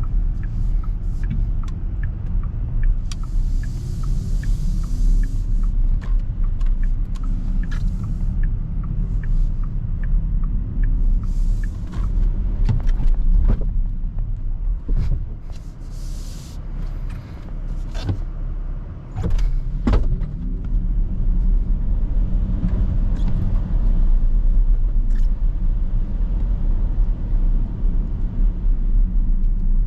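Porsche Macan 4 Electric driving, heard from inside the cabin: a steady low tyre and road rumble with no engine note, and scattered short clicks and knocks. The rumble eases briefly about halfway through.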